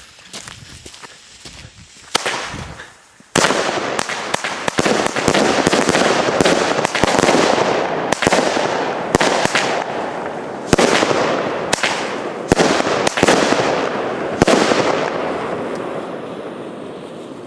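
Vogelschreck firework going off: a dense run of rapid crackling and sharp bangs starts suddenly about three seconds in, keeps going for about twelve seconds, then dies away near the end.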